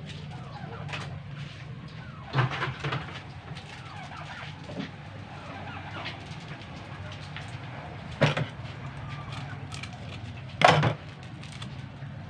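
Chickens clucking and squawking: a burst of loud calls a couple of seconds in, then two more single loud calls later, the last the loudest, over fainter chirping.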